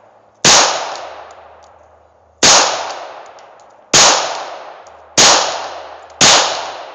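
Five shots from a Glock 23 pistol in .40 calibre, fired one at a time about one to two seconds apart, each trailing off in a long echo.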